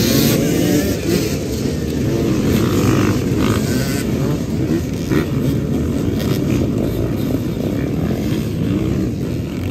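Many off-road dirt bike engines revving hard at once as rows of riders launch off the start line and accelerate away, a dense mass of overlapping, wavering exhaust notes.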